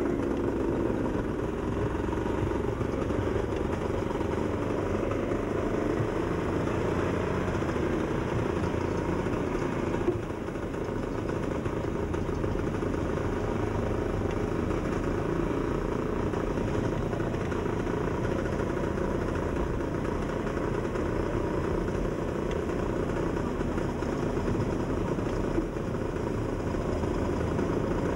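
Steady engine and road noise from vehicles driving along at an even speed, with a brief drop in level about ten seconds in.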